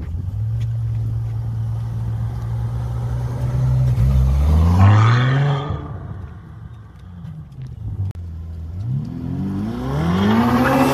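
Two Ferrari sports car engines. The first runs at a steady low note, then revs up sharply with a rising pitch about four seconds in and drops off just before six seconds as it accelerates away. A second engine climbs in pitch from about eight and a half seconds and is loudest at the very end as it approaches.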